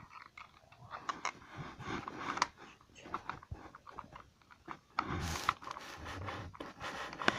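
Close handling noise: scattered clicks, rustling and scraping of hands on a plastic toy and its cardboard packaging, louder rustling from about five seconds in.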